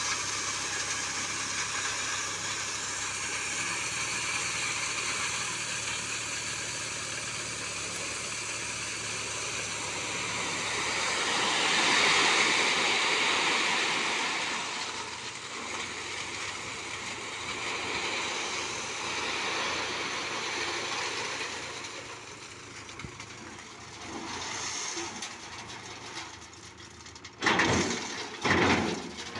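Mahindra 575 DI SP Plus tractor's four-cylinder diesel engine running as its tipping trolley lifts, with a load of crushed stone sliding out the back in a rushing pour that is loudest about twelve seconds in and fades after. A few loud thumps near the end.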